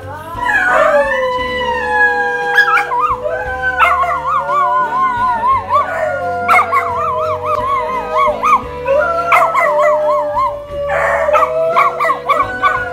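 A dog howling in long, wavering cries that slide up and down in pitch, over background music.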